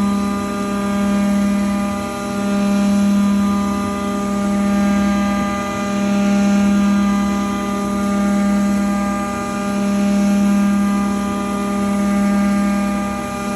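CNC milling machine running a job: a steady hum from the spindle, whose loudness swells and falls about every two seconds as the cut goes on.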